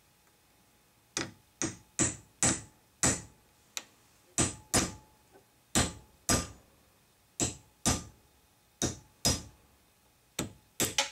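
Framing hammer striking a steel punch to drift a stubborn front sight out of a 1911 slide's dovetail: about sixteen sharp metallic blows from about a second in, mostly in pairs, each ringing briefly.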